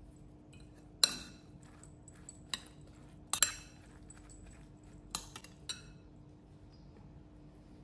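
A metal spoon stirring a diced filling in a glass bowl, clinking sharply against the glass about six times, with the loudest clink about a second in.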